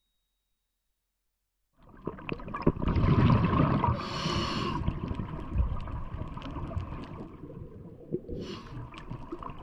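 After about two seconds of silence, underwater audio of a scuba diver breathing through a regulator: rumbling exhaled bubbles, a hissing inhale about four seconds in and another near the end, over a steady crackle of small clicks.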